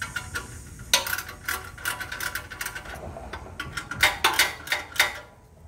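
Socket ratchet wrench clicking in short irregular strokes as a bolt is snugged down with a 10 mm socket, with a few louder clicks near the end.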